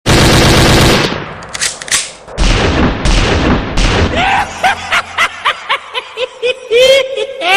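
Loud intro sound effects: a blast-like burst of noise, several short noisy bursts, then a quick run of short chirps that bend up and down in pitch, ending in a longer held tone.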